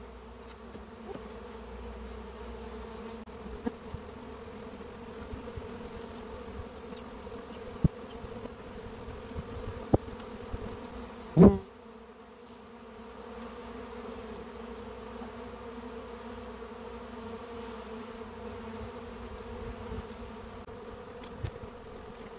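A swarm of honeybees buzzing steadily around a hive entrance, a constant droning hum. A few short knocks break in, the loudest about halfway through.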